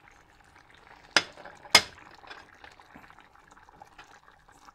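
Spinach rice simmering in a pan with a faint, steady bubbling, and two sharp knocks about half a second apart a little over a second in.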